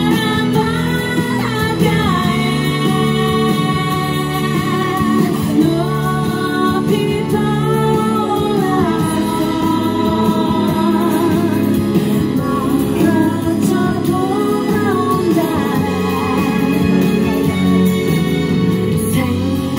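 A woman singing a slow song into a microphone through outdoor PA loudspeakers, with long held notes and vibrato over a steady instrumental accompaniment.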